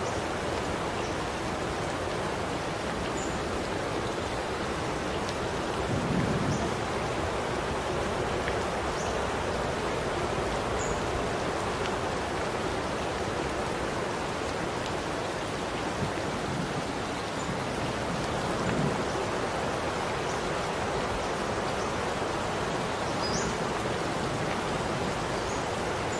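Steady rain falling, an even hiss with no let-up, with brief dull thumps about six and nineteen seconds in.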